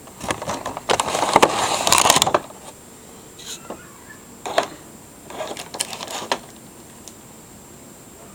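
Cardboard box and packaging scraping and rustling as a boxed figure's packaging is slid up and out of its box. The loudest stretch is a rough scrape with clicks lasting about a second and a half; after it come a few shorter, quieter rustles and knocks.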